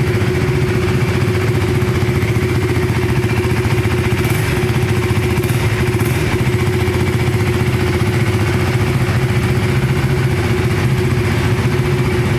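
KTM 390 Enduro R's single-cylinder engine idling steadily, with no revving.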